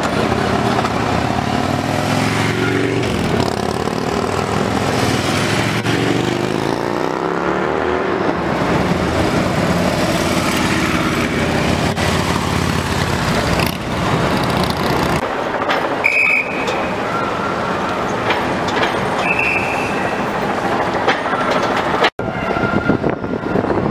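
Several Harley-Davidson V-twin police motorcycles riding past in traffic, their engines rumbling with a pitch that falls as each goes by. Two short high tones sound in the second half.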